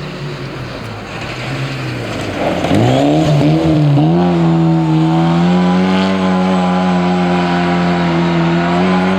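Rally car engine accelerating hard, its note rising steeply a few seconds in and then held at high revs at full throttle as the car draws near.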